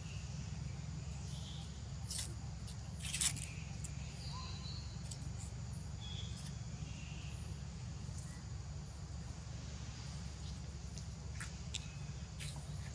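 Outdoor ambience: a steady low rumble with faint, scattered short chirps and clicks, and one sharper click about three seconds in.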